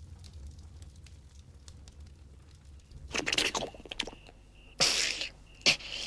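Cartoon sound effects: faint crackling of a log fire over a low rumble, then two loud hissing whooshes and a sharp click. A cricket starts chirping in short, evenly spaced pulses from about four seconds in.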